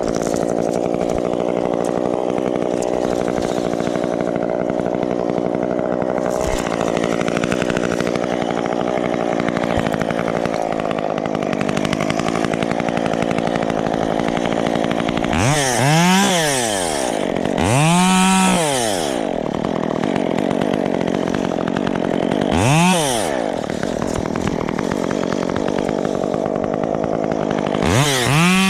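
Gas chainsaw running steadily at idle, then revved up and let back down four times in short bursts of about a second each.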